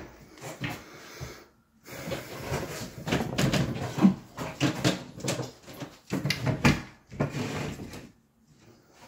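Cabinet doors and parts being handled during a cabinet install: irregular knocks, scrapes and rattles of wood, in uneven clusters over several seconds.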